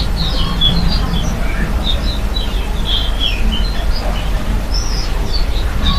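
Several small birds chirping and twittering in quick, overlapping short calls, over a steady low rumble.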